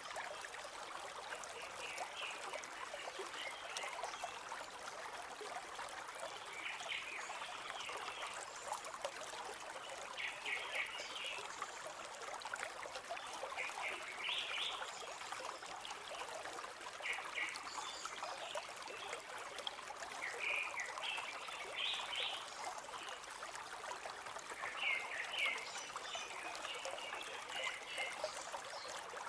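A shallow forest river flowing and trickling steadily. Short, high bird chirps come in little groups every few seconds over the water.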